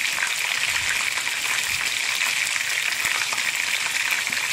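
Seasoned chicken pieces frying in hot oil in a nonstick frying pan, being browned: a steady sizzle with fine crackling.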